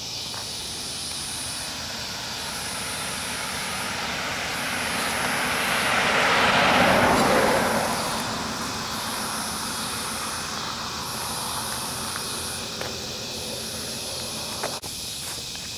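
A vehicle passes on the road; its tyre and engine noise swells to a peak about seven seconds in, then fades over a couple of seconds. Behind it, a high-pitched insect chorus pulses steadily, about once a second.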